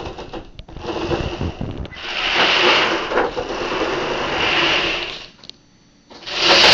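Homemade tracked robot's electric drive motors and #25 roller-chain drive running as its treads scrub across carpet: a loud, steady mechanical whir with a few clicks, which the builder puts down to the chain slipping on the motor sprocket. It cuts out about five seconds in and starts again just before the end.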